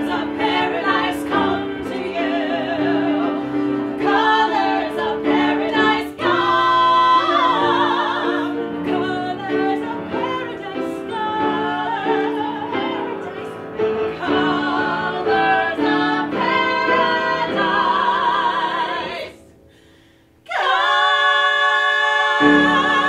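A musical theatre song: women's voices singing together over sustained accompaniment. Near the end the music drops away for about a second, then the voices come back in on a long, loud held note with vibrato.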